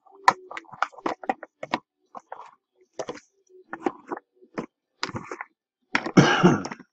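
Cardboard hobby box and wrapped card packs being handled: a run of short taps, clicks and crinkles, with a longer, louder rustle of packaging about six seconds in.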